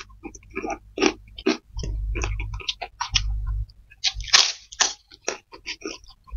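Close-miked eating: crisp white crackers being bitten and crunched, mixed with chewing of fried flat rice noodles, in irregular short crunches; the loudest crunching comes a little past four seconds in.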